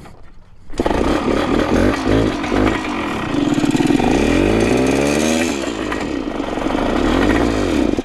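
Vintage Yamaha enduro's two-stroke engine running and being revved up and down a few times, then cutting off abruptly. The engine has internal damage that the owner guesses is a failed bottom end.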